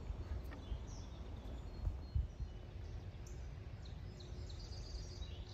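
Low, uneven outdoor background noise with a few faint, scattered bird chirps.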